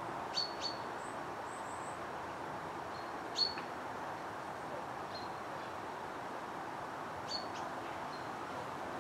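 Short, high bird chirps: a pair about half a second in, a louder single one around three and a half seconds, and another pair near the end, over a steady background hiss.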